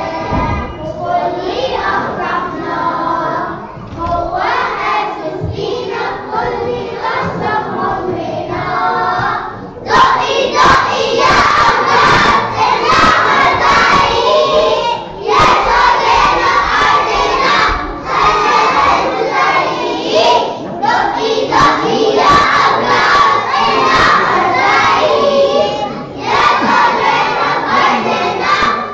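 A group of young children singing together, much louder from about ten seconds in, near to shouting the song.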